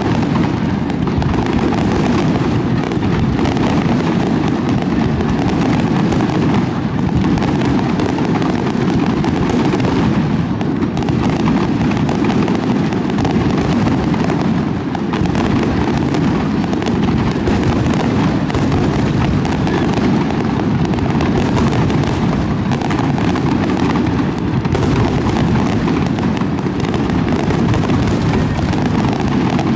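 Dense barrage of aerial firework shells from a professional display, bursting in rapid succession so the bangs and crackles run together into a steady roar with no pauses.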